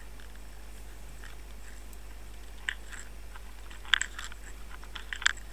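Quiet room tone: a steady low hum and hiss with a few faint, sharp clicks, one about halfway in, a small cluster a little later, and another near the end.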